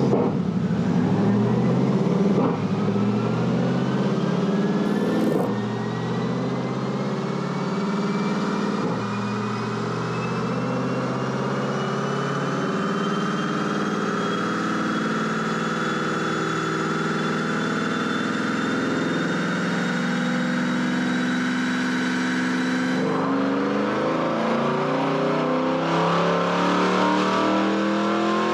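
C8 Corvette's 6.2-litre LT2 V8 with long-tube headers, high-flow cats and cat-back exhaust running on a chassis dyno. It upshifts three times in the first ten seconds, then pulls on while a whine climbs steadily in pitch with speed. Near the end the engine note changes and rises again.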